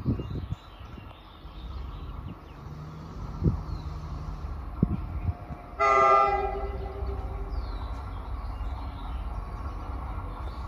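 Approaching train sounding its horn in a single blast of about a second, roughly six seconds in, the loudest thing here; afterwards a low rumble of the train drawing nearer. A few dull low thumps come before the horn.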